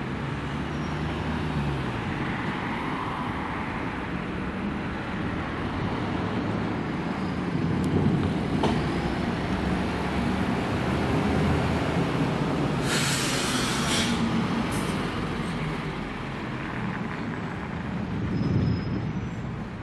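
Street traffic with a tram running on in-street track, wheel and running noise mixed with car engines. Partway through comes a short hiss lasting about a second.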